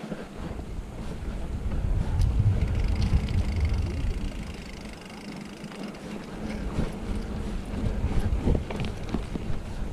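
A Specialized Fuse mountain bike riding down a dirt singletrack: wind rumbles on the microphone, loudest from about two to four seconds in, over tyre noise. Sharp clicks and rattles come from the bike over bumps in the second half.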